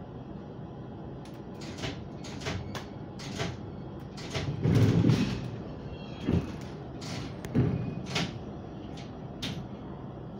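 Two electric trains coupling: a run of metallic knocks and clunks as the couplers come together, the loudest a heavy thud about five seconds in, followed by a few more clanks.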